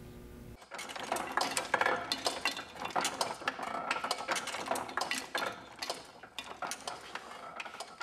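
Irregular metallic clinking and clattering of letterpress print-shop work: many sharp clicks a second, starting abruptly about half a second in.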